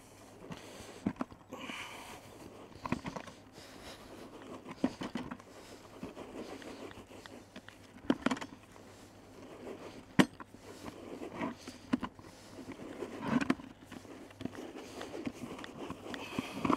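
Damp groundbait rubbed by hand through a wire-mesh riddle over a plastic bucket: a gritty rustling scrape with scattered sharp clicks. The riddling breaks up the wet lumps and spreads the moisture through the mix, making it fluffy for the method feeder.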